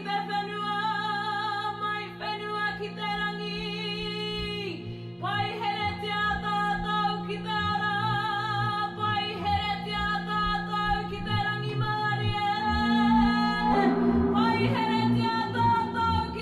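Music: long held sung notes with vibrato over a steady sustained accompaniment, changing note every few seconds.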